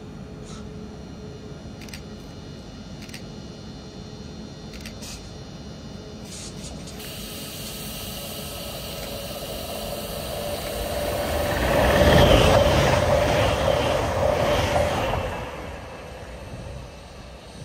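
A train running through a station, growing louder to a peak about twelve seconds in and then fading, with a steady whine at its loudest.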